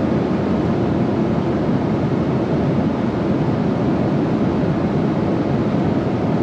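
Airliner cabin noise in cruise: a steady, deep rush of airflow and engines, unchanging throughout.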